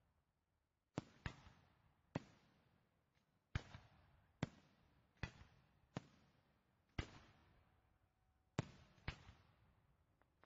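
Fireworks exploding: about ten sharp bangs at irregular intervals, one to one and a half seconds apart and sometimes in quick pairs, each followed by a fading echo. The bangs start about a second in.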